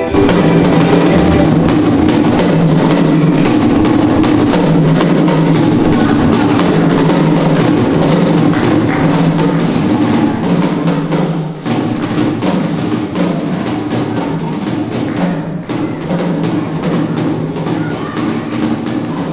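Loud upbeat children's dance music with a steady drum beat, an instrumental stretch without singing.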